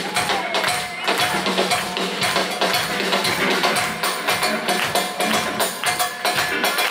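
Live rock band playing an instrumental passage with a steady, quick percussive beat of about four strikes a second, recorded from within the audience.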